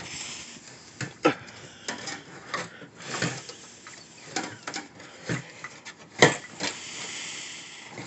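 Scattered clicks, knocks and scraping of parts being handled as an old fuel pump is worked loose from a car's fuel tank, with the sharpest knock about six seconds in.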